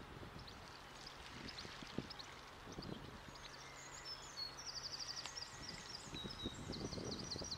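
Faint water splashing from goosanders bathing, in scattered short strokes. Small birds chirp in a quick high series in the second half, over a faint low hum.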